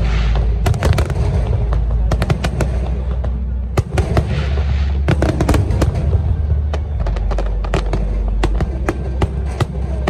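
Fireworks show: rapid, overlapping bangs and crackling bursts, several a second, over a steady low rumble.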